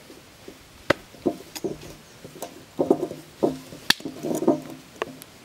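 Wire whisk stirring flour and cocoa into thick chocolate batter in a glass bowl: soft scraping, with four sharp knocks of the whisk against the bowl.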